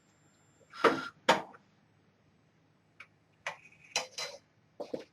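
A few light, irregular clicks and clinks of kitchenware: two about a second in, then a cluster from about three seconds in, some with a short metallic ring.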